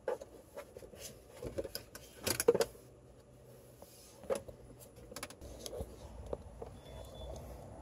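Scattered clicks and knocks of a 1993 Acura Legend's plastic glove box being handled and opened, with a louder clatter about two and a half seconds in.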